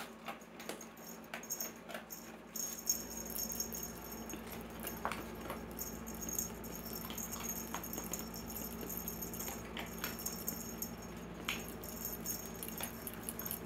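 Cat's wand toy jingling and rattling faintly on and off, with scattered light taps and rustles as the cat plays with it.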